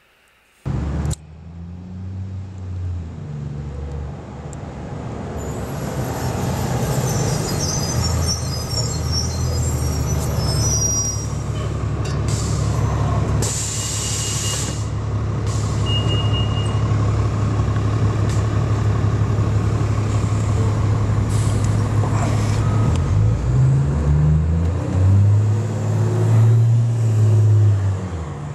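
A motor vehicle engine running steadily, its low hum shifting in pitch near the end, over outdoor background noise.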